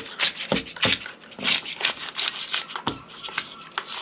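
Irregular scratchy scraping: hardened expanding foam being scraped out of the gap at the edge of a window frame.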